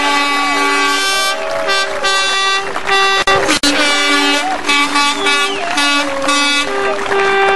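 Horns honking repeatedly: long two-note blasts held together, cut off and sounded again several times.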